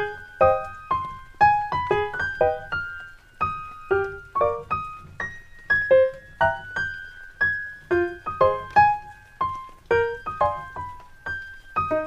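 Background piano music: a gentle melody of single notes and small chords, a few a second, each dying away.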